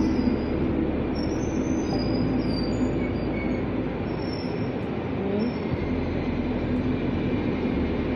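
PKP Intercity passenger coaches rolling past along the platform: a steady rumble of wheels on rail, with short, faint, high wheel squeals on and off.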